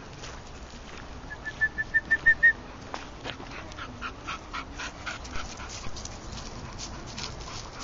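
A dog whimpering: a quick run of about eight short, high whines that grow louder, followed by fainter scattered whines. Steps crunch on the gravel path throughout.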